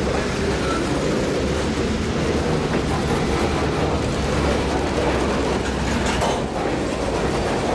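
Freight cars rolling past at close range: steel wheels on the rails making a steady rolling noise, with a few faint clicks about six seconds in.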